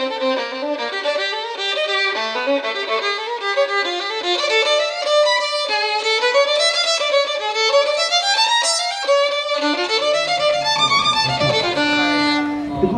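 Violin music: a quick, busy melody of many short notes. Near the end, background voices begin to come in under it.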